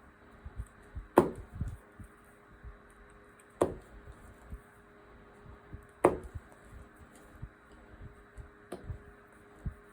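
Knocks and clicks from working a potholder loom by hand, with the hook and loops knocking against the loom's pegs as loops are picked up and pulled under. Four sharp knocks with a short ring, the loudest about a second in, then about two and a half seconds apart, with soft small taps between.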